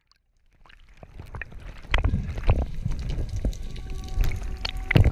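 Underwater ambience: a low rumbling water noise with many scattered clicks and crackles, fading in during the first second and getting much louder about two seconds in.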